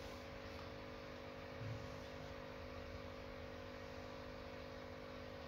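Quiet room tone: a steady low hum over hiss, with one soft low bump a little under two seconds in.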